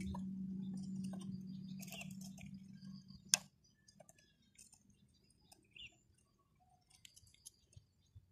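Light plastic clicks and taps as toy plastic parts are handled and fitted together, with one sharp snap about three seconds in. A steady low hum fades away over the first three seconds.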